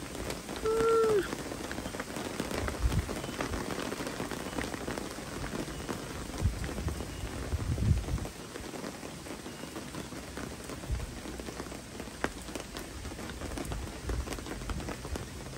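Heavy rain falling steadily, with many fine drops pattering on nearby surfaces. A brief pitched call comes about a second in, and a few low thuds sound, the loudest near the end of the middle.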